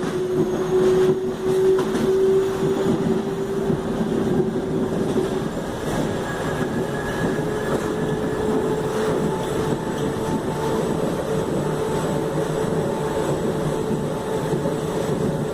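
Traction motor of a Mafersa/Hitachi Series 1700 electric multiple unit train running, a steady whine over the rumble of the running train. About halfway through, the whine shifts slightly higher in pitch.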